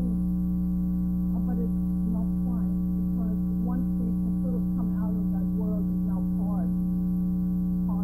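Steady electrical mains hum with many evenly spaced overtones, far louder than a woman's faint talk beneath it. The speech was recorded at too low a level, so the hum dominates.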